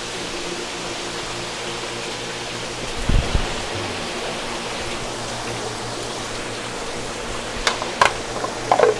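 Steady rush of circulating water with the low hum of running pond pumps. A dull thump comes about three seconds in, then a few sharp clicks and knocks near the end.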